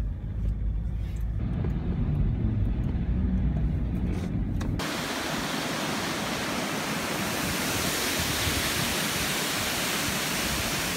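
Low, steady road rumble of a car, heard from inside the cabin. About five seconds in it cuts abruptly to the loud, steady rush of a waterfall pouring over rock.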